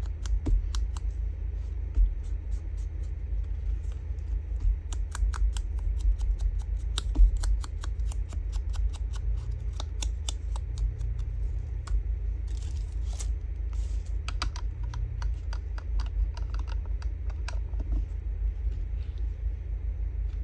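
Ink blending tool tapped and rubbed against the edges of paper strips to ink them: many quick, irregular soft taps and scuffs over a steady low hum.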